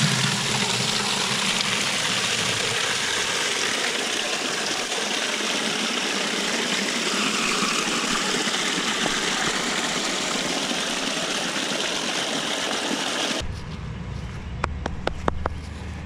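Steady, even rushing noise with no beat or pitch that cuts off abruptly about thirteen seconds in, giving way to a low engine rumble with a few sharp clicks.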